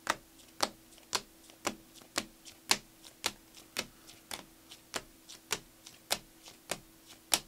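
A stack of plastic-sleeved Panini Prizm basketball cards flipped through one card at a time, each card clicking sharply as it is slid off the stack, about two clicks a second with fainter ticks between.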